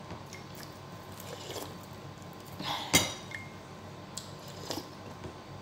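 Metal spoon clinking against a dish, with a single sharp ringing clink about three seconds in and a few softer taps and scrapes around it, along with quiet eating sounds.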